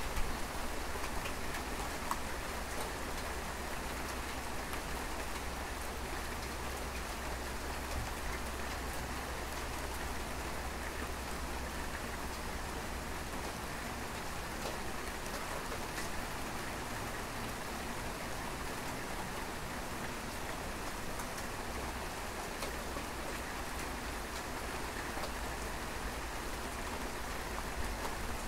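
Steady rain falling, with scattered individual drops ticking close by.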